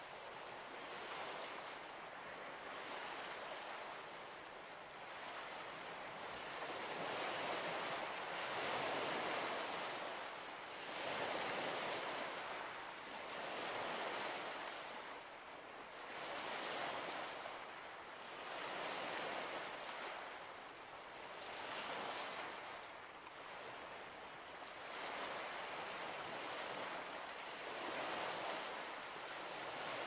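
Waves washing onto a shore, each surge swelling and ebbing in a rhythm of about one every two to three seconds.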